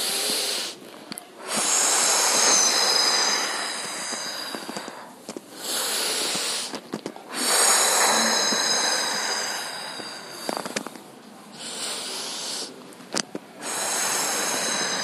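A woman's deep breathing close to a clip-on microphone: about six long, loud breaths in and out with short pauses between, each lasting one to three seconds. The breaths follow the circling of a seated chakki pose, breathing out while leaning forward and in while coming back.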